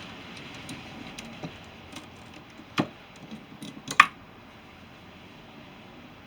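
Faint steady hiss with two sharp clicks, about three and four seconds in; the hiss drops away after the second click.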